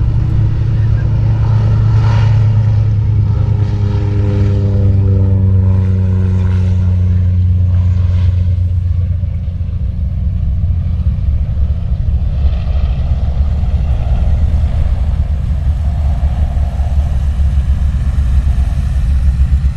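Antonov An-2 biplane's nine-cylinder Shvetsov ASh-62 radial engine and propeller at takeoff power as it lifts off and climbs away. The engine note dips slightly in pitch as it passes a few seconds in, and the higher part of the sound fades while the deep drone carries on.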